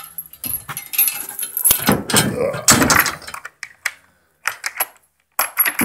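Irregular metallic clinking and jangling with knocks and rustling, busiest over the first three seconds, then a few scattered clicks.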